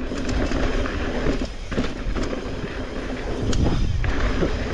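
Mountain bike rolling down a dusty dirt trail: tyres on loose dirt and gravel and the bike rattling over bumps, with a few sharp knocks.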